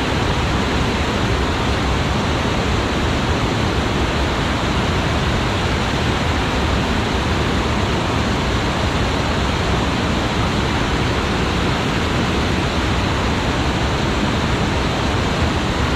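Steady rush of fast-flowing river water and waterfall, a loud, even hiss with no breaks.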